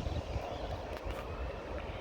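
Steady low rumble of a train approaching on the line, with wind buffeting the microphone and a few faint high chirps above it.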